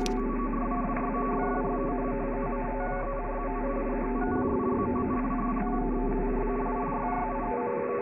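Many short electronic beeps and tones at different pitches, overlapping and changing every fraction of a second, heard through a narrow, telephone-like sound band. Underneath is a steady low mains hum that drops out briefly about halfway through and stops just before the end.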